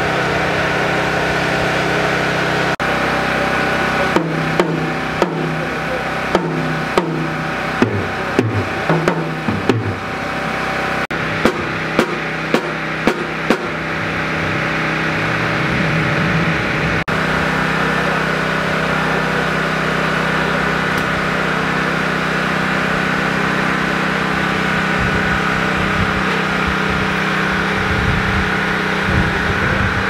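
Drum kit drums struck with a stick one hit at a time while being tuned, each hit leaving a short pitched ring, about one or two hits a second for several seconds. A steady musical background runs underneath.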